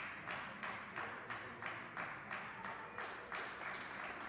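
Spectators applauding just after a table tennis rally ends, a dense patter of many hands clapping that starts suddenly.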